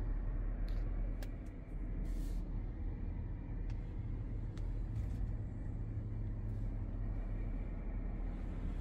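Steady low rumble heard inside the cabin of a Peugeot e-Partner electric van, with no engine note, and a few light clicks in the first half.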